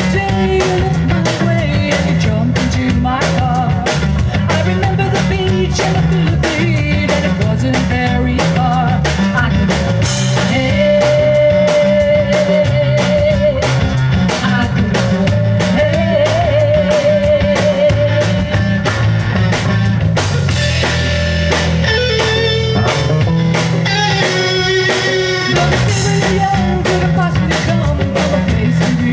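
Live rock band playing: electric guitar, electric bass and two drum kits, with long held lead notes that waver in the middle.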